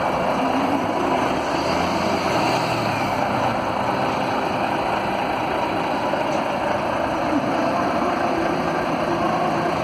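Diesel engine of a Volvo B460R coach running steadily.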